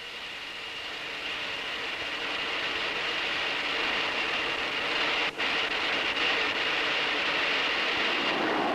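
Jet aircraft noise: a steady rushing roar with a constant high whine, growing slowly louder, with a brief dropout about five seconds in.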